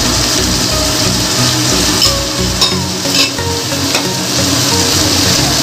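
Shredded vegetables (cabbage, carrot, capsicum, onion) sizzling as they are stir-fried in a kadhai. A steady hiss runs throughout, with the spatula clicking against the pan a few times around the middle.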